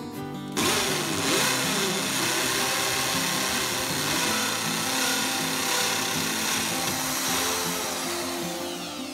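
Electric hammer drill set to hammer mode, boring a 6 mm hole into a wall with a 6 mm bit. It starts abruptly about half a second in, runs steadily, and eases off near the end.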